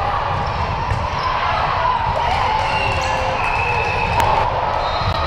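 Sounds of an indoor volleyball rally on a hardwood court: sneakers squeaking, a sharp smack of the ball about four seconds in, and a background hum of players' and spectators' voices.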